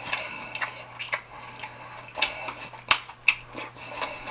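Close-miked eating sounds: chewing with a string of short wet mouth clicks and smacks, about one every half second, and one sharper click about three seconds in.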